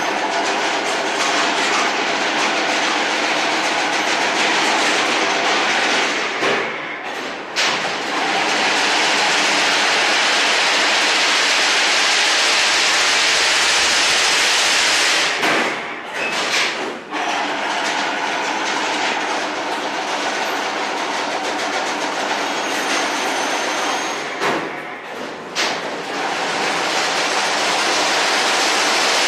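Fully automatic chain link fence machine running as it weaves single PVC-coated wire into mesh: a loud, dense, continuous mechanical clatter that briefly drops away a few times.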